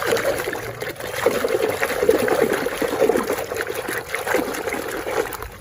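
Water running and splashing over a muddy plastic toy as it is rinsed clean.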